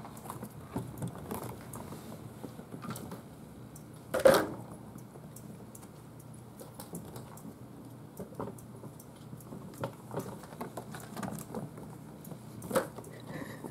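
Kittens scampering and scrabbling over a wooden floor and a carpeted cat tree: scattered light taps and scratches, with two louder thumps, one about four seconds in and one near the end.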